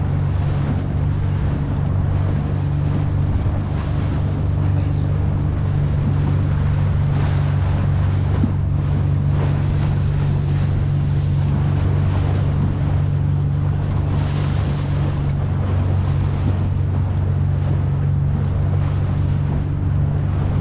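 Fishing boat's engine running steadily at trolling speed, a constant low hum, with water rushing past the hull and wind buffeting the microphone.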